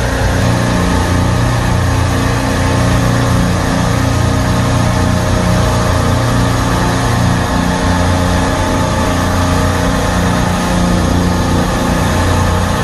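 Loud, steady machine hum of a supermarket refrigeration compressor rack running, with a low drone and no breaks.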